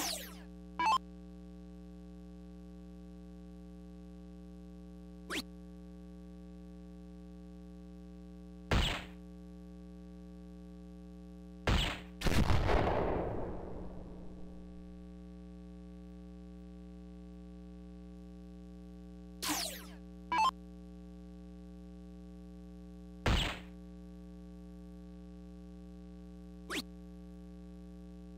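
Soft-tip darts striking an Arachnid electronic dartboard: short, sharp hits spaced several seconds apart, about nine in all. About 12 seconds in, right after a throw, the machine plays a longer award sound for a 'Low Ton' score that fades over about three seconds. A steady electrical hum runs underneath.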